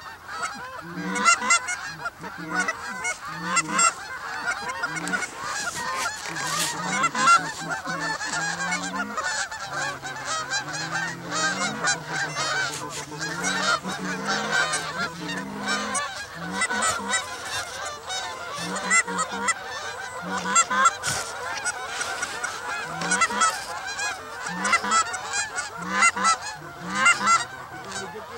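A large flock of Canada geese honking continuously as it circles overhead, many birds calling over one another.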